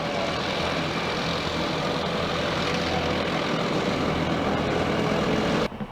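A large vehicle's engine running close by, a steady loud drone with a low hum. It stops abruptly near the end.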